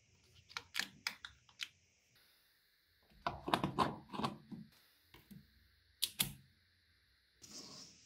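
Small magnetic balls clicking together as they are snapped into place. There are a few sharp clicks early on, a dense run of clicks a little before the middle, and two more clicks about three quarters of the way through.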